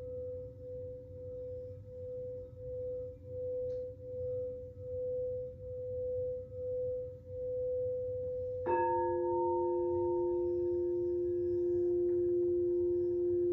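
Singing bowl ringing on after a strike, its tone wavering in loudness with a slow pulse. About nine seconds in a second, lower-pitched bowl is struck and rings together with the first.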